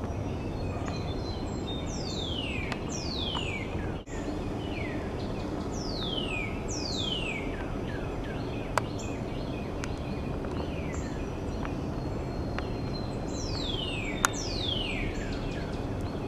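A songbird singing clear whistles that slide steeply downward, usually two in a row, repeated about four times over a steady background rumble. Two sharp clicks stand out, about halfway through and near the end.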